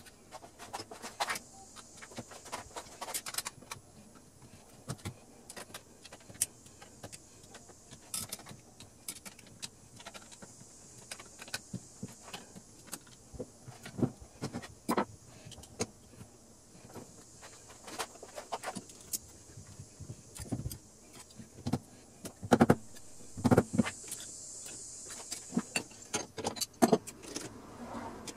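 Irregular metallic clicks, clinks and knocks of hand tools and parts being handled on a small mill's spindle pulley and V-belt drive, with a few louder knocks about three quarters of the way through.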